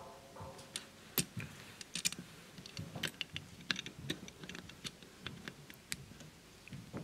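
Faint, irregular small clicks and taps as small rubber drive belts are stretched onto the aluminium pulleys of a metal model engine and fingers and parts knock lightly against the metal.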